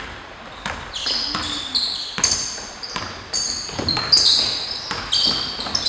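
A basketball being dribbled on a hardwood gym floor, bouncing roughly every half second to second, with basketball shoes squeaking sharply on the floor again and again from about a second in.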